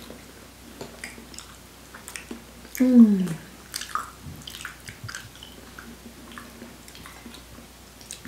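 Eating sounds: soft, creamy durian flesh being squished and chewed, with small clicks of forks on plates. About three seconds in, a person's short vocal sound falling in pitch is the loudest thing.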